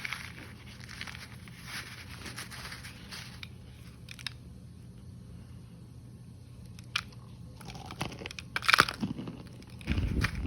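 Compacted cornstarch chunks (Great Value and Argo) being bitten and chewed, crunching in irregular bursts, with the loudest crunch about two seconds before the end.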